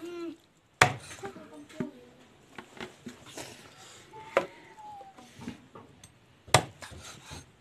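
Large kitchen knife chopping raw chicken on a thick round wooden chopping block: sharp chops, the two loudest about a second in and near the end, with lighter knocks between.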